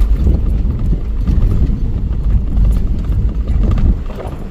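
A vehicle's low rumble while driving over rough ground, with irregular knocks and rattles throughout.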